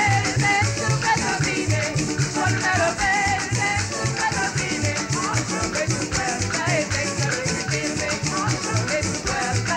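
Trinidadian parang band playing: small guitars (cuatros) and guitars strumming over a constant shake of maracas and a steady pulse of bass notes.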